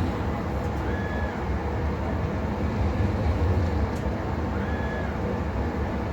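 CNC lathe running a threading cycle on steel: a steady low motor rumble, with a short rising-and-falling whine of the axis drive twice, about a second in and near five seconds.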